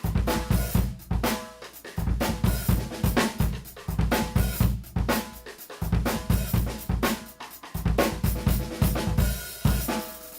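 A drum kit playing grooves built on a Mapex Armory Peacemaker snare drum with a maple and walnut shell, its strokes ringing, backed by bass drum, hi-hat and cymbals. The playing comes in short phrases with brief breaks between them.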